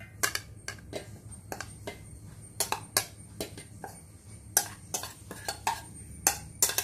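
A spoon clinking and scraping against a ceramic bowl and a stainless-steel mixer-grinder jar as grated coconut is scooped across, in irregular sharp taps about one to three a second.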